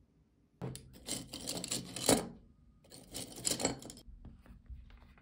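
A hardcover sketchbook handled on a wooden desk: two bouts of rubbing and light knocking as it is slid and set down, the first about a second and a half long, the second shorter.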